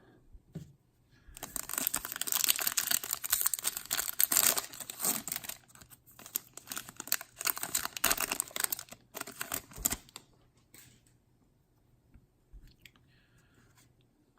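Foil trading-card pack wrapper being torn open and crinkled, a dense crackling from about a second and a half in until about ten seconds, with brief pauses, then near quiet.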